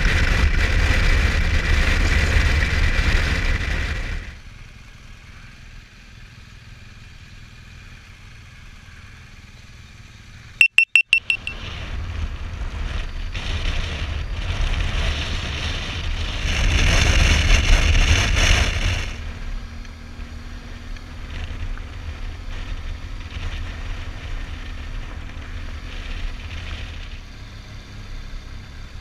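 Motorcycle riding heard from a helmet-mounted camera: wind rush and engine noise, loud at first, dropping sharply after about four seconds and rising again later. About eleven seconds in comes a quick run of short, sharp, high-pitched beeps.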